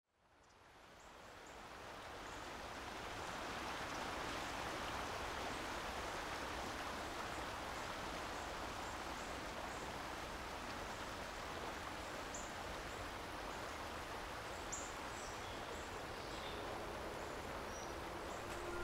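Steady rush of flowing water from a stream or river, fading in over the first few seconds, with a few faint high bird chirps in the second half. Soft music notes enter near the end.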